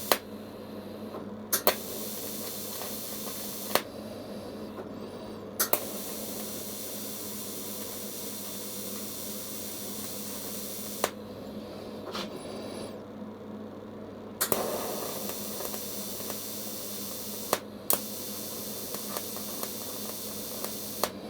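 Electric welding arc hissing steadily on thin-walled copper tube at 45 A, broken off and restarted several times with sharp clicks. The current is too high for the tube, which is burning through.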